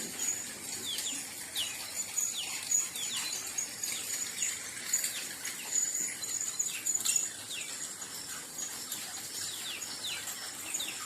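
Small birds chirping, many short quick downward chirps over and over, with a steady high-pitched thin tone running underneath.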